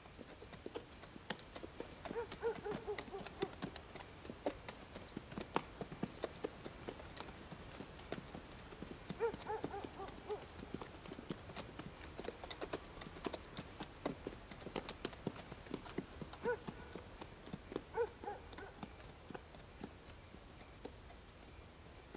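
Horse hooves clip-clopping on a hard surface: a long, irregular run of fairly faint hoofbeats.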